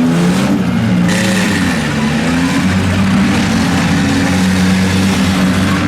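Demolition derby cars' engines running hard and revving, their pitch rising and falling.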